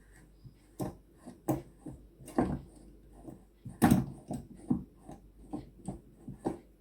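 Irregular knocks and clunks of things being handled and set down, about a dozen spread unevenly, the loudest a little past the middle.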